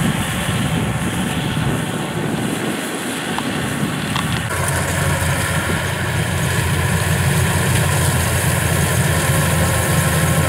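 Yanmar rice combine harvester running steadily as it cuts and threshes ripe rice. About four and a half seconds in, the sound changes abruptly to a closer combine, and a steady whine from its machinery joins the drone.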